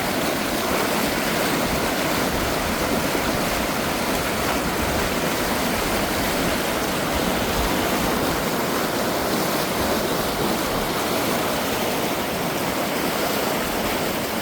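Mountain valley stream flowing steadily through narrow gaps between rocks, a constant even rush of water.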